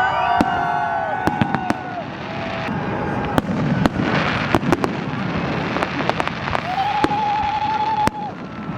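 Fireworks display going off in many sharp bangs and crackles, with several whistling tones near the start and a held, wavering whistle about seven seconds in.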